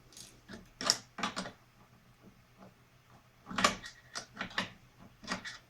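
Irregular clicks and clinks of metal hand tools being handled, as wrenches are tried for a bolt that needs a 13 mm size. The loudest clicks come about a second in and again around the middle.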